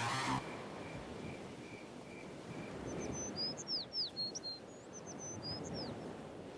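A bird calling a quick series of high, falling chirps from about three to six seconds in. Under it are a steady outdoor hiss and a faint chirp repeating two or three times a second in the first few seconds.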